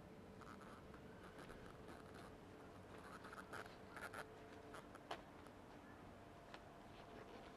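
Near silence: faint steady room hum, with light scratching and a few small ticks during the first five seconds.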